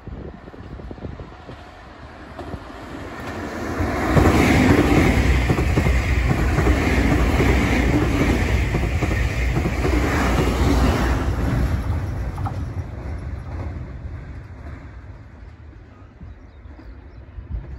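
Nankai 12000-series "Southern Premium" limited-express electric train passing close by, with a low rumble and clattering wheels. The sound builds over the first few seconds, is loudest for about seven seconds as the cars go by, then fades away.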